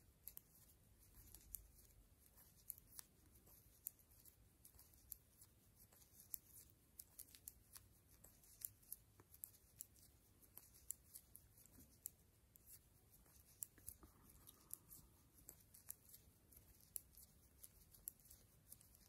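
Faint, irregular light clicks, about two a second, of metal knitting needles tapping together as a row of purl stitches is worked by hand.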